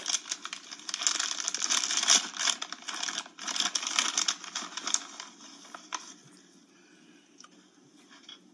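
Plastic chip bag crinkling and rustling loudly as it is handled, dying away about six seconds in.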